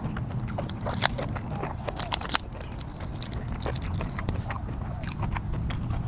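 Close-miked chewing: wet mouth clicks and crisp crunches of fresh raw greens, in irregular bursts.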